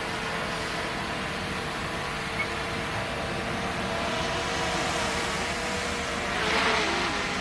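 Heavy earthmoving machinery, a bulldozer or dump truck, with its diesel engine running steadily, with a louder swell and a few falling tones about six seconds in.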